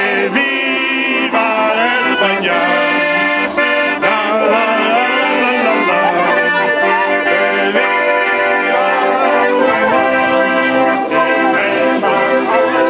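Piano accordion playing a tune with held chords, at a steady level throughout.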